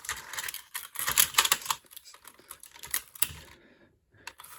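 Hard plastic parts of a DX Siren Builder (Flash Point Megazord) toy robot clicking and clattering as it is squashed down and popped back up. Quick, irregular clicks, busiest about a second in, with a brief silence near the end.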